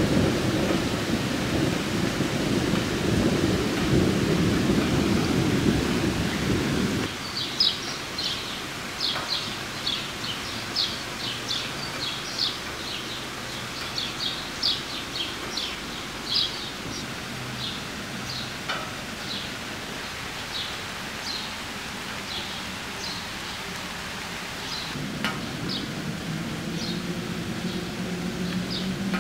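Rain in a thunderstorm, with low rumbling thunder that stops abruptly about seven seconds in and comes back near the end. In the quieter stretch between, a steady hiss of rain carries many short high chirps, like small birds.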